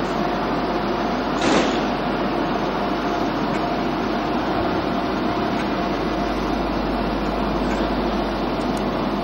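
Steady mechanical hum of a Class 90 electric locomotive and its train of coaches drawing to a stand at the platform, with a short hiss about one and a half seconds in.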